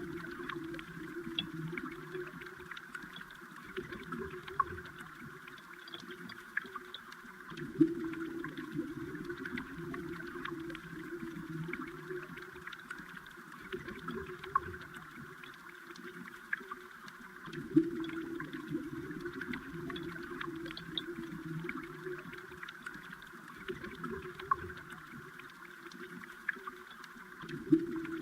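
Underwater sound of flowing stream water: a steady gurgling murmur that swells and eases every few seconds, scattered with small sharp clicks and a few louder ticks.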